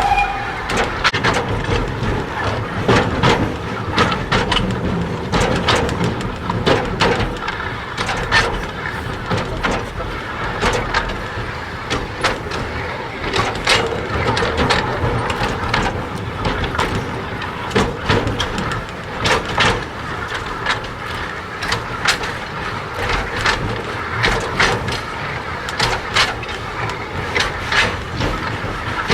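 A 760 mm narrow-gauge steam train's wagons rolling on the track, with a steady rumble and frequent irregular clanks and knocks from the wheels and couplings.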